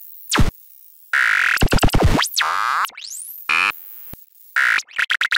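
Synthesized glitch sound effects of an animated logo intro. A quick falling sweep comes first, then choppy buzzing tones with fast glides up and down, a rising sweep about three seconds in, and a burst of stuttering clicks near the end.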